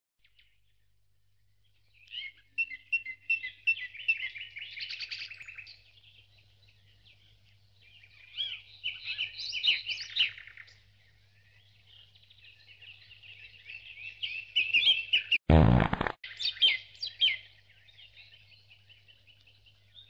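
Lyrebird singing in three bursts of quick, repeated high whistled and trilled notes. A short loud low burst of noise cuts in about two-thirds of the way through, over a faint steady hum.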